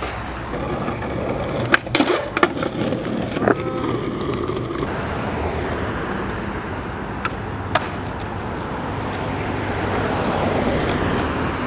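Skateboard sounds: a few sharp clacks and knocks of the board in the first seconds, then a skateboard rolling on concrete, its wheels making a steady rumble with a couple of light clicks.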